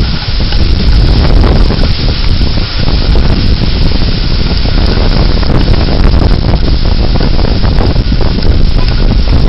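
Severe thunderstorm wind gusting hard, a loud, steady rushing hiss with heavy low rumbling where the wind buffets the microphone.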